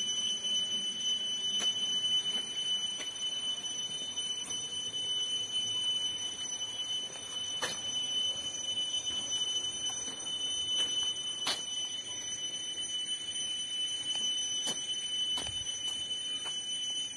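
A steady, high-pitched whistling tone with fainter higher tones above it, unbroken and even in level, with a few faint clicks.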